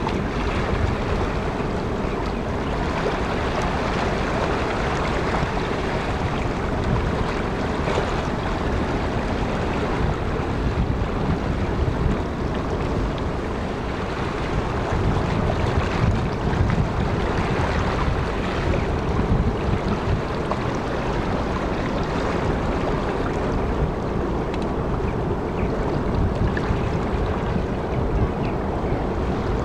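Wind buffeting the microphone over the steady wash of sea waves.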